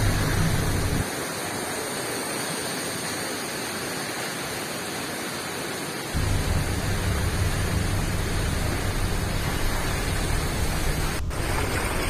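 Steady rushing of the Coban Rondo waterfall and its water, an even roar with no break. A low rumble under it drops away about a second in and comes back around six seconds in, and a single click sounds near the end.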